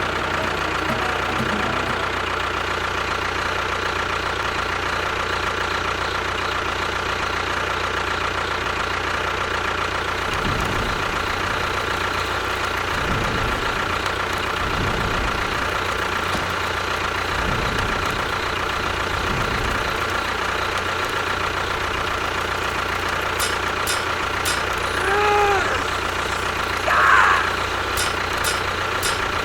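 A steady engine-like machine hum, even throughout, with a short pitched sound about 25 seconds in and a brief louder burst about 27 seconds in.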